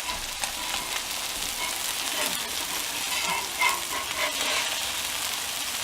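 Food sizzling in duck fat on a hot flat-top griddle: a steady hiss with many small crackling pops of spattering fat.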